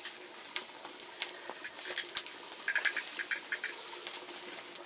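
Open wood fire crackling and popping as a chicken is singed over the flames: sharp, irregular snaps, with a quick run of them about three seconds in.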